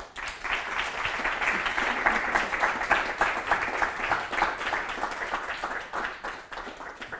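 Audience applauding: many hands clapping in a dense patter that starts suddenly, holds for several seconds and dies away near the end.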